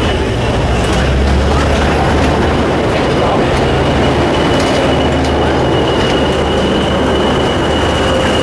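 Diesel locomotive running with a loud, steady low engine rumble. A thin, steady high whine, which may be wheel squeal, grows stronger about halfway through.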